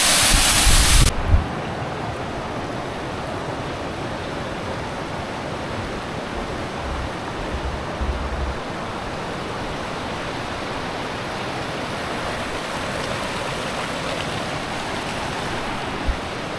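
Fast-flowing mountain river rushing steadily. It is much louder for about the first second, then holds at a steady, even level.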